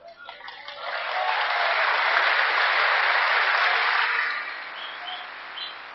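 Audience applauding, swelling up within the first second, holding strong for about three seconds, then dying away.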